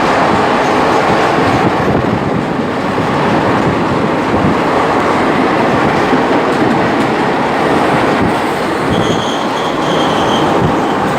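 Train running through a long tunnel: a loud, steady rumble with the clatter of wheels on rails. A brief thin high squeal comes in near the end.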